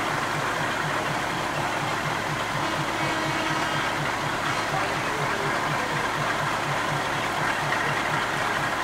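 Diesel railcar engine idling with a steady low throb of about three to four pulses a second, heard from inside the carriage.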